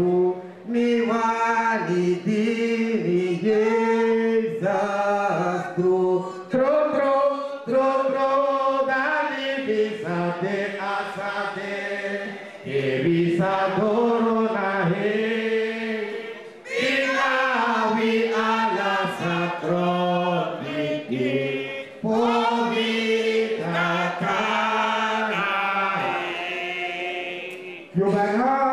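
A man chanting a song into a microphone, in sung phrases of a few seconds with brief breaks between them.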